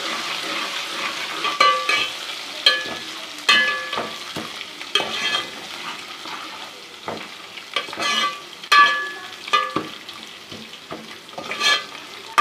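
Garlic-ginger paste and onions frying in hot ghee, sizzling steadily, while a spoon stirs and scrapes the pot and knocks against its side about once a second, each knock ringing briefly.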